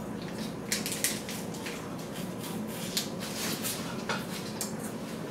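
Irregular light crinkles and clicks of a plastic freeze-pop sleeve being squeezed and sucked, over a steady low hum.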